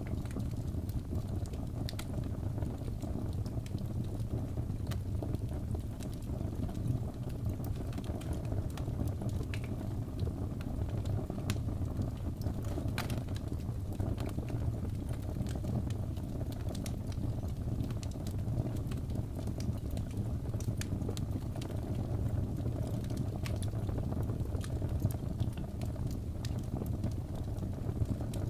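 Fireplace fire crackling: a steady low rumble with sharp pops scattered irregularly throughout.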